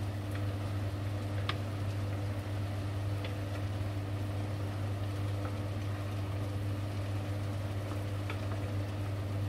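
Pot of vegetables simmering in a little water while a wooden spoon stirs them, with a few light clicks of the spoon against the pot, over a steady low hum.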